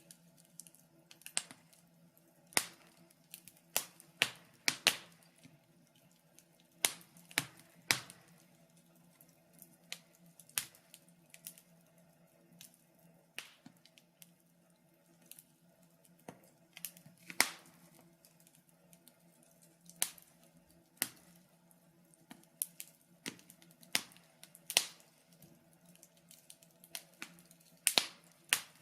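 Wood fire crackling, with sharp pops at irregular intervals, a few much louder than the rest, over a faint steady hum.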